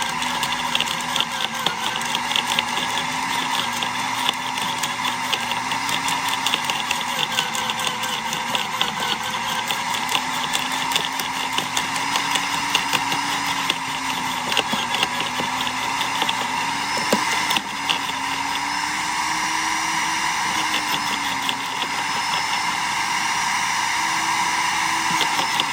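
Sun Joe CJ603E 15-amp electric wood chipper running steadily. Its motor whine dips and rises in pitch as it is loaded by branches being fed in, over a continuous crackle of wood being chipped.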